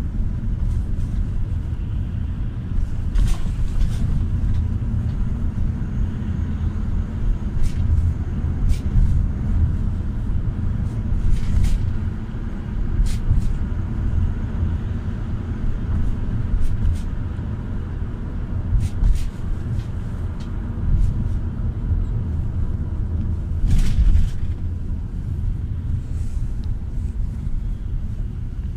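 Cabin noise inside a moving GAZ A64R45 minibus: a steady low rumble of its Evotech engine and the tyres on the road, with occasional short clicks and rattles from the body.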